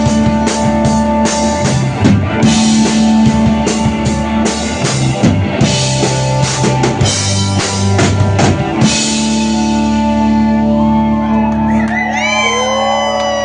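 Live rock band playing an instrumental passage on drum kit and guitars. About nine seconds in the drums stop and a held chord rings on, and near the end a note bends up and down over it.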